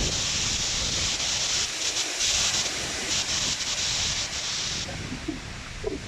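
Strong wind gusting through evergreen trees, a loud rushing hiss in the needles that eases off about five seconds in, over a rough low rumble of wind buffeting the microphone.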